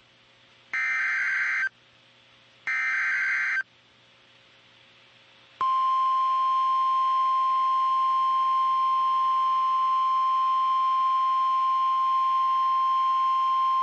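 NOAA Weather Radio Emergency Alert System signal: two one-second bursts of buzzing SAME header data about a second apart, then, after a short pause, the steady 1050 Hz warning alarm tone sounding from about halfway through.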